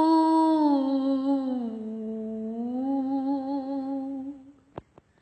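Solo voice singing unaccompanied, holding one long drawn-out note that slides down in pitch and then partly back up before fading out about four and a half seconds in. Two faint clicks follow near the end.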